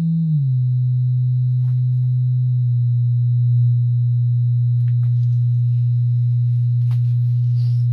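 Loud, steady low bass sine test tone of about 120 Hz, as fed through a car audio amplifier under test. Its pitch rises briefly and falls back at the very start, then it holds steady.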